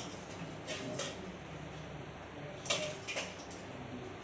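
Dishes and pots clattering a few times as they are handled and washed, with a sharper pair of knocks near the end.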